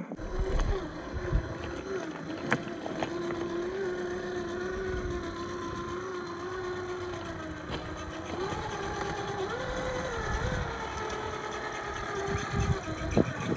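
Electric motor and gear drivetrain of a scale RC crawler whining at crawling speed. The pitch holds steady, then wavers up and down from about eight seconds in. Low rumbles and a few sharp knocks sound beneath it as the truck works over the terrain.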